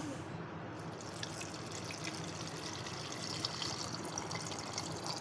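Chilled water being poured into a blender jar in a steady stream.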